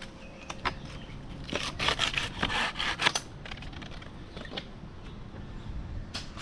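Crackling and scraping of wood debris, in a dense cluster from about a second and a half to three seconds in, loudest near the end of it.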